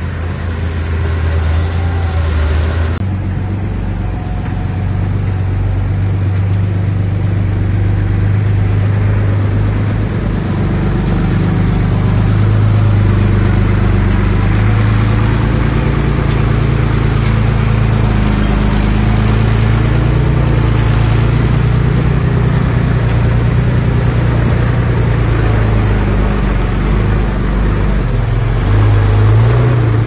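Komatsu D31P crawler bulldozer's diesel engine working under varying load while pushing dirt and stone, its pitch rising and falling, revving up near the end.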